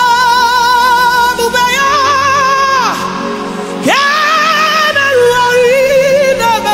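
Woman singing a gospel song into a microphone, sliding up into long held notes with a wide vibrato, over instrumental backing.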